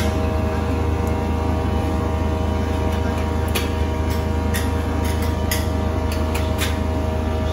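Steady hum of restaurant kitchen equipment, with light utensil clicks and knocks about once a second.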